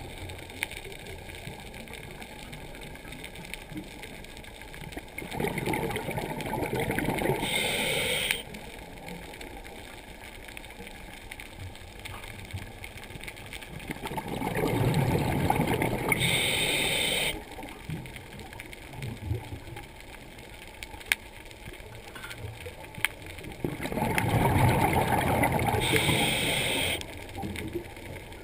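A diver breathing underwater through breathing apparatus: three breaths about ten seconds apart, each a couple of seconds of bubbling followed by a short hiss that cuts off sharply, over a steady low underwater background.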